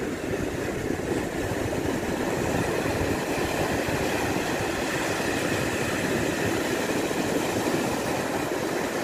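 Sea surf breaking and washing up onto a sandy beach: a steady rushing noise with a low rumble underneath, from rough waves.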